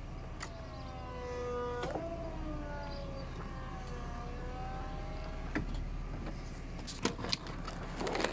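BMW E46 convertible's electro-hydraulic soft-top pump whining as the top raises, its pitch sliding down and then back up over about five seconds. Sharp clicks and clunks from the folding frame and latches come through it, several close together near the end.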